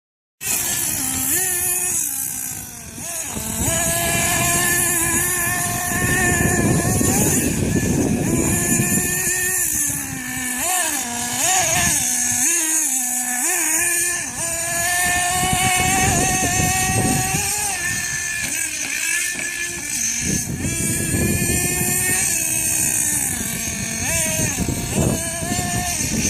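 Small nitro glow engine of a radio-controlled short course truck running and revving, its high-pitched note rising and falling again and again as the throttle is worked.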